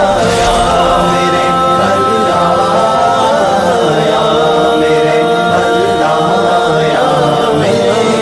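Devotional naat chanting: layered voices holding long notes that shift slowly in pitch.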